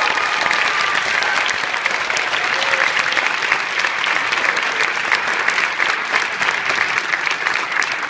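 Audience applauding steadily, dense clapping after an a cappella song, with the last sung note fading out about a second in.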